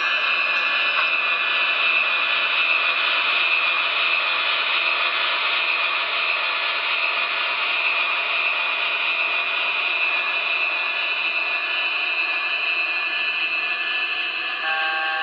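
Sound system of an MTH HO-scale Union Pacific Veranda gas-turbine locomotive model playing its turbine sound: a steady high whine over a loud rush. Just before the end, a horn chord starts.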